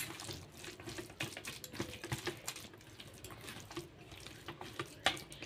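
A hand squishing and mixing a wet fish-roe fritter batter in a stainless steel bowl: irregular wet squelches with small clicks against the bowl.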